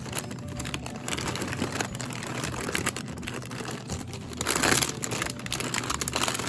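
Plastic food packaging crinkling and rustling as it is handled, with a louder rustle about four and a half seconds in.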